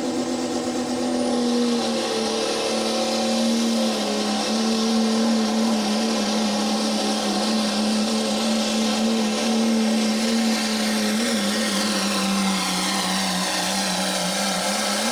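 Cummins diesel engine of a pro stock diesel pulling truck running at full throttle under heavy load as it drags a weight-transfer sled. Its note climbs in the first two seconds off the line, then holds a steady high pitch for the rest of the pull.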